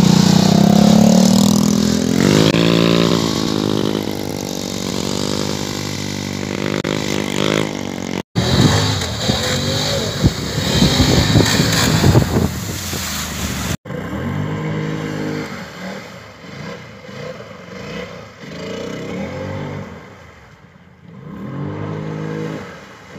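Polaris Sportsman 850 ATV's twin-cylinder engine revving hard, its pitch climbing and falling again and again. In the middle stretch, water sprays and splashes loudly as the quad ploughs through shallow water. Near the end the engine revs more quietly as the quad wades through a pond.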